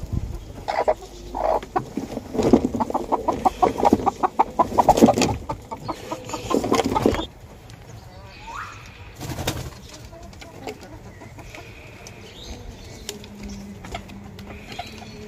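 Chickens in a farm coop: a loud, rapid flurry of sounds for about five seconds that stops abruptly, then quieter scattered clucks and calls.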